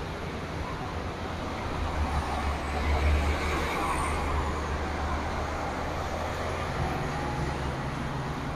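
Road traffic passing on a multi-lane street, with a city bus driving by in the near lane; its low engine rumble swells to the loudest point about three seconds in, then eases into steady traffic noise.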